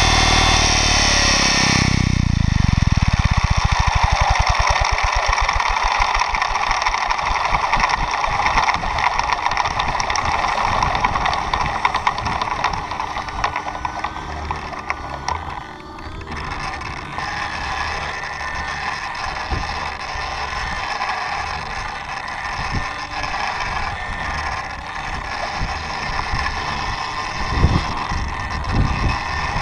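Electric RC helicopter (Mikado Logo 800 Xtreme) spooling down after landing. The motor's whine falls in pitch and drops away about two seconds in, leaving the main rotor blades swishing ever more slowly. A few knocks come near the end as the rotor head is handled.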